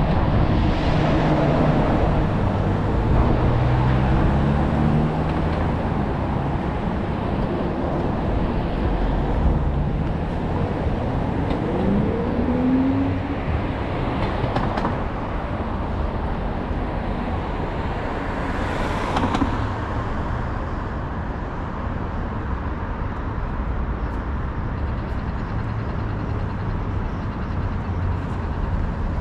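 City street traffic: a steady low rumble of passing cars and other vehicles, with engine notes rising and falling in the first few seconds and again about halfway through.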